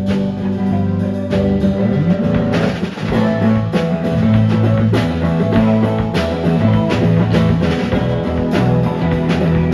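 Instrumental rock band passage: electric guitars and bass playing over a steady drum-kit beat, with no vocals.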